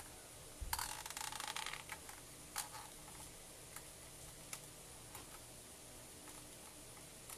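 Faint handling sounds of a hot glue gun worked over a painted cardboard diorama: a brief rustling scrape about a second in, then a few soft clicks, over a steady low hiss and hum from a running fan.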